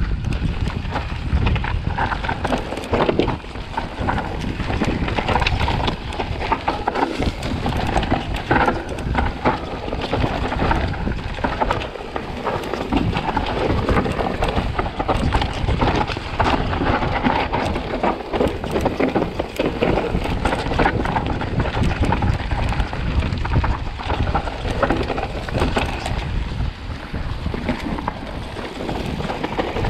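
Vitus Sommet CRX mountain bike descending a dirt trail: tyres running over dirt and roots with a constant clatter of knocks and rattles from the bike, over a heavy low rumble of wind buffeting the microphone.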